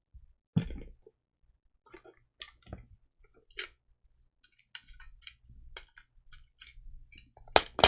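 Light, scattered clicks and taps of small hard craft pieces being picked up, shuffled and set down, with a sharper knock near the end.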